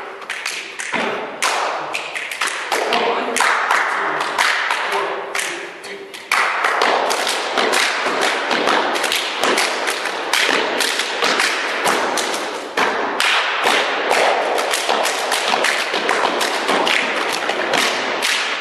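Stepping body percussion by three men: a fast rhythm of foot stomps on the floor with hand claps and slaps on the body. The rhythm gets louder and denser about six seconds in and again about halfway through.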